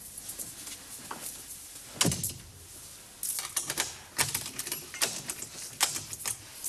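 Irregular clicks and knocks of small objects being handled, with a heavier knock about two seconds in and a quicker run of clicks after that.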